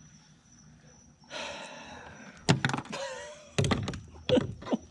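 Hollow thuds and knocks on a kayak, after a second or so of rustling, while a freshly landed tripletail is handled aboard. There is a short squeak near the middle.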